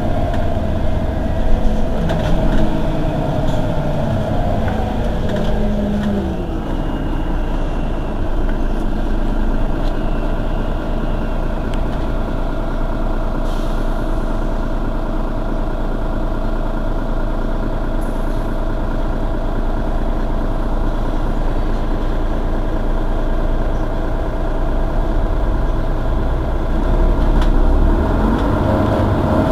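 Mercedes-Benz Citaro city bus running. Its pitch falls over the first several seconds as the bus slows, it idles steadily through the middle, and near the end the pitch starts rising again as it pulls away.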